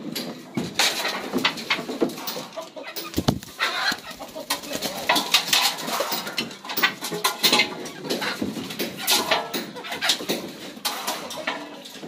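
Domestic chickens clucking and calling inside a wooden coop, with frequent short knocks and clatters.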